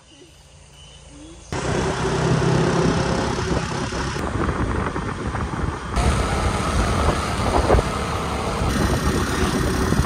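Motor scooters riding along a road: engine hum mixed with rushing air noise, beginning abruptly about a second and a half in.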